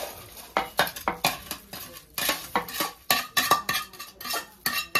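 Steel bowl and spoon clinking and knocking against a large metal pot as chopped ghee-fried nuts are tipped and scraped into roasted flour: a quick, irregular run of knocks, a few of them ringing briefly.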